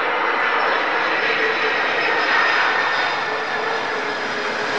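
Turbofan engines of a Boeing 767 airliner rolling along the runway: a steady, loud rush of jet noise with a faint high whine held through it.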